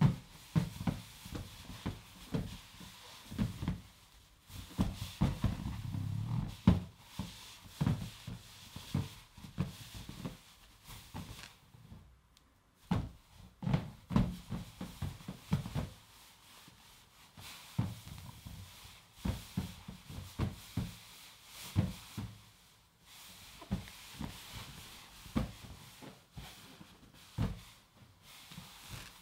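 A large inflated latex balloon being handled, pressed and hugged against fur, with irregular soft knocks and rubbing.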